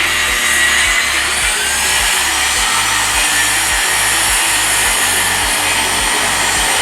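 A power tool running steadily with a dense hissing noise, over background music with a low beat about twice a second.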